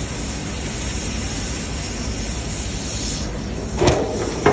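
Cutting torch hissing steadily as it burns through the metal restraint at a ship's bow. The hiss falls away a little after three seconds, and then come two sharp bangs with a short ring, less than a second apart, near the end.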